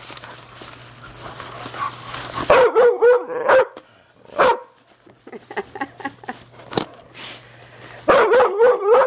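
A dog vocalizing excitedly in two loud bouts of wavering, high whine-barks, the first about two and a half seconds in and the second near the end. Between them come rustling and scattered knocks as dogs nose into a torn cardboard box.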